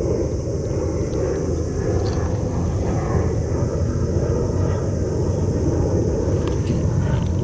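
Steady low rumble of wind buffeting the microphone, with a steady high hiss above it and a few faint ticks near the end.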